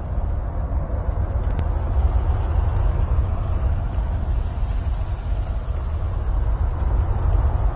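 Wind buffeting the microphone in a low, irregular rumble, with a single faint click about one and a half seconds in.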